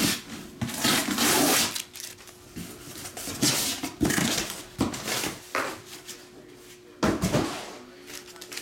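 Handling noises from shrink-wrapped cardboard card boxes being moved on a table: rustling and scraping, a longer swish about a second in, and sharp knocks about four and seven seconds in.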